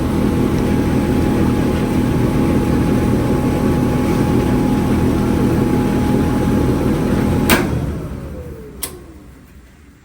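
Whirlpool clothes dryer running steadily with its drum turning and a steady whine, no longer rubbing now that a bent part that touched the drum has been bent clear. About three-quarters through it is switched off with a click and the motor spins down with a falling whine, followed by a second click.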